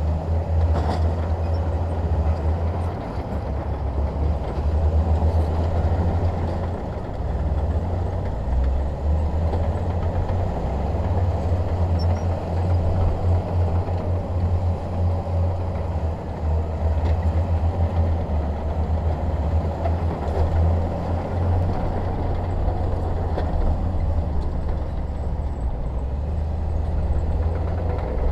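Bulldozer's diesel engine running steadily as it works, a low, fast engine pulse whose level rises and dips a little.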